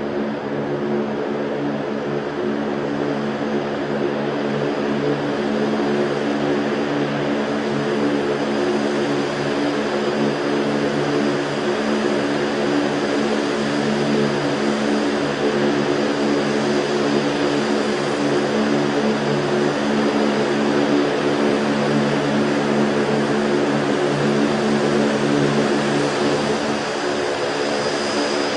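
Bell Boeing V-22 Osprey tiltrotor's turboshaft engines and proprotors running: a steady drone with several even tones over a wide rushing noise, growing slowly louder.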